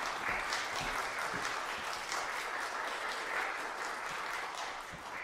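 Audience applauding steadily, starting to fade near the end.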